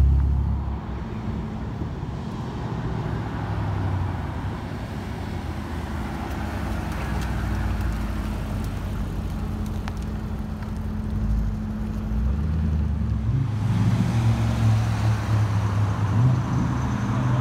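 Car engines running at low speed as sports cars roll past, over road traffic noise. A steady low engine hum gives way to a louder, deeper engine rumble about fourteen seconds in.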